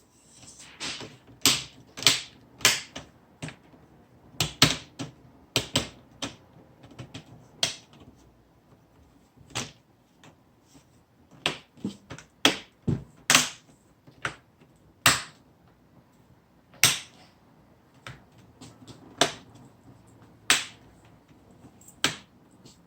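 Plastic LCD screen bezel of an Acer laptop being pressed back onto the lid, snapping into place in an irregular series of sharp clicks.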